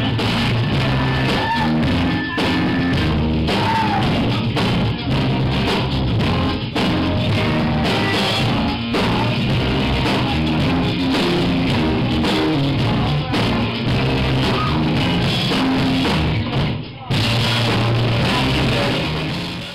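Live rock band playing: drum kit, electric guitar and a singing voice, with a brief drop in level about seventeen seconds in.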